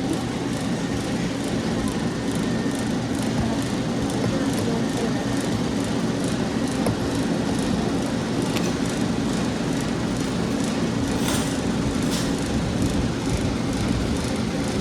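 Steady low mechanical hum with faint, regular ticking over it, and two sharper clicks about three-quarters of the way through.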